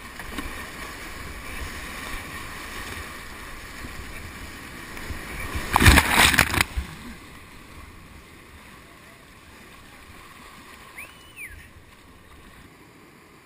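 Whitewater of a creek rapid rushing steadily around a kayak running it. About six seconds in comes a loud, churning crash lasting about a second, as water washes over the camera when the kayak plunges through the foam. After that the moving water is quieter.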